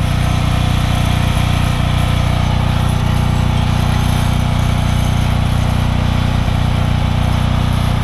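Brake cleaner jetting steadily from a pressurized spray can onto the brake caliper bracket and rotor: an even, continuous hiss with a steady low hum beneath it.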